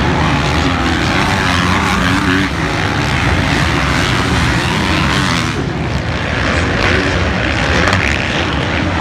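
Several motocross bikes racing on the track, their engines revving up and down together into a loud, buzzing drone that rises and falls as riders accelerate and back off.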